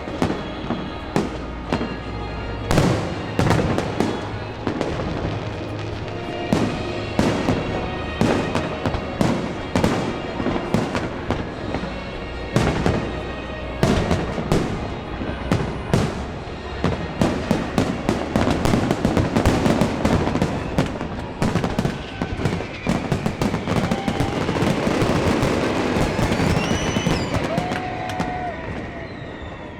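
Fireworks display: a rapid run of sharp bangs, turning into thick crackling in the second half, then easing off near the end.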